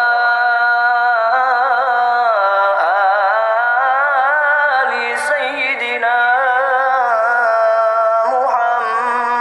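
Background music: a single voice singing long held notes that waver and slide in ornaments.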